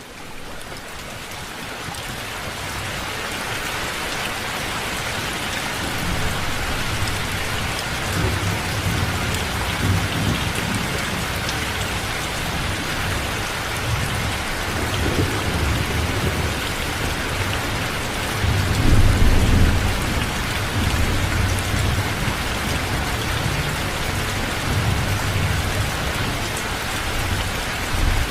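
Steady rain falling, fading in over the first few seconds, with low rolling thunder rumbling on and off beneath it; the loudest rumble comes about two-thirds of the way through.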